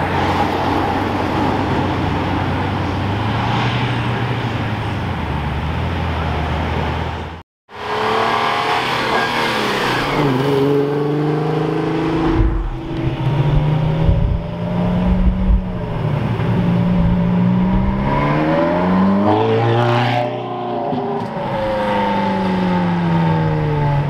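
A Lamborghini Countach's V12 running at low steady revs as the car creeps along. Then, after a break, sports car engines accelerate hard uphill, the engine note climbing and dropping back with each gear change.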